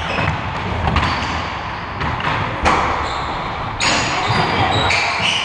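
Basketball being bounced on a gym floor, a run of irregular thuds, with short high squeaks over the din of play.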